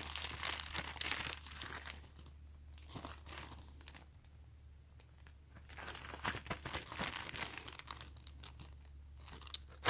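Thin polyethylene (LDPE) plastic bag crinkling as it is handled, in bursts: busy for the first couple of seconds, quieter in the middle, then crinkling again toward the end.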